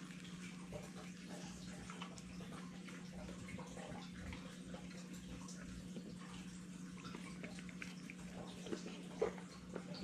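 A pit bull eating bread from a hand, with wet chewing and licking clicks over a steady low hum. One sharper click comes near the end.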